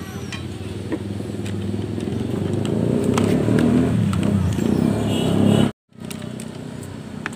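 A motor vehicle engine running, growing louder over a few seconds, then broken by a sudden moment of silence about six seconds in before it carries on more quietly.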